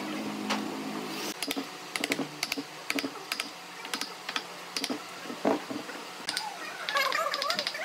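Wooden mallet striking a wood chisel cutting into a tree stump: sharp, irregular knocks about one or two a second. Near the end comes a quick run of lighter clicks.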